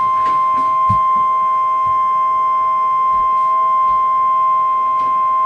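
NOAA Weather Radio's 1050 Hz warning alarm tone: one steady, loud, high beep that cuts off sharply near the end. It is the signal that a warning message follows.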